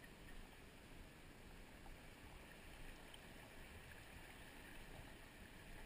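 Faint, steady rushing noise of a fast-flowing, flooded river.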